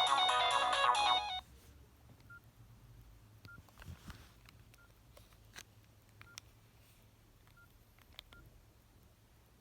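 Nokia 6681 ringtone, a polyphonic melody through the phone's speaker, cutting off suddenly about a second in. Then faint keypad clicks, several of them with a short beep.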